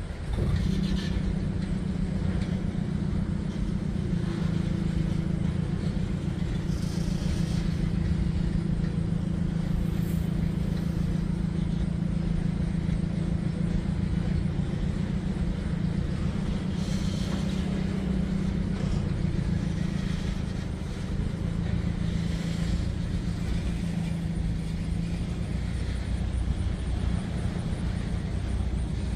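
EMD SD35 diesel locomotive's engine running under load during a switching move: a steady low engine drone that comes up suddenly just after the start and holds on.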